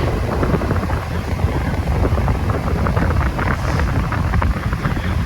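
Ventnew Turbão 60 cm 200 W wall fan running, its air stream buffeting the microphone as a loud, steady rushing rumble.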